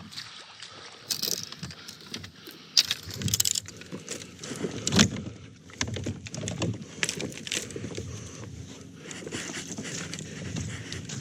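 Irregular clatter and knocks of gear being handled, with a jingle like keys. About two-thirds of the way through, a vehicle engine's steady low idling hum comes in and keeps going.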